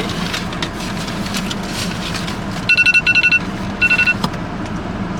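Car running, heard as a steady low hum inside the cabin. About halfway through come two short strings of rapid electronic beeps, a brief pause between them.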